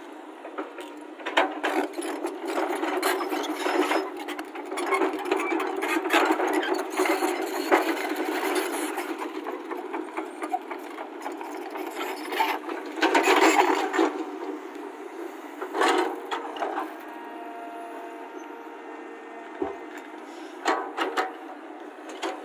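Caterpillar hydraulic excavator running while its steel bucket digs into stony soil: scraping, crunching and knocking of bucket teeth against rock and earth over the steady engine. The scraping comes in dense bursts through the first eight seconds, then again about thirteen seconds in and in shorter bursts later.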